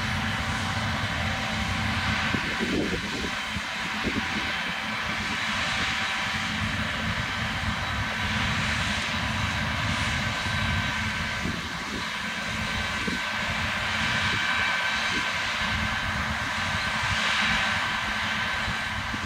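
John Deere combine harvester running steadily while harvesting, a constant mechanical drone with a steady high whine over it.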